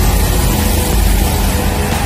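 Engines of a twin-engine high-pressure sewer jetter (350 bar) running steadily, while the hose sprays a hard jet of water that hisses against the asphalt.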